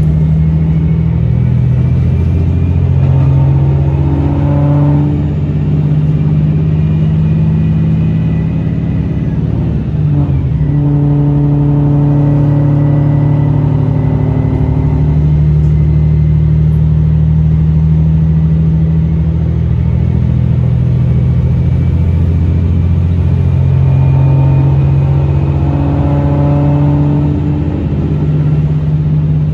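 Inside a Tosa Kuroshio Railway 9640-series diesel railcar under way: the diesel engine running with a loud, steady low drone over the rumble of the running gear. Its note changes in steps several times, most clearly about ten seconds in.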